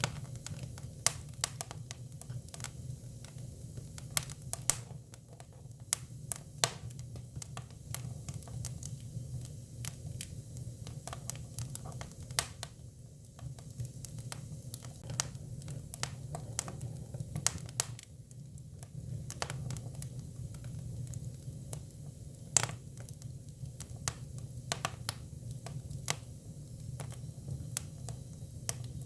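Hinoki cypress firewood burning: irregular sharp crackles and pops over a steady low rumble of the fire. A few pops stand out, about a second in, around four to five seconds in, and one near twenty-three seconds.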